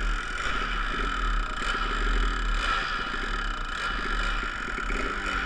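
Kawasaki KDX200 two-stroke single-cylinder dirt bike engine running under way, its revs repeatedly rising and falling. Wind rumbles on the microphone.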